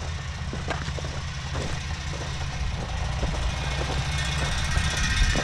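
John Deere 6930 tractor's six-cylinder diesel engine running steadily while pulling a fertiliser spreader, heard as a low rumble with scattered light knocks. It grows a little louder near the end.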